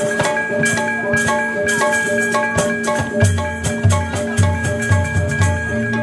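Balinese gamelan ensemble playing: bronze keyed instruments ring on steady pitches over kendang drums, with quick sharp metallic strokes packed throughout.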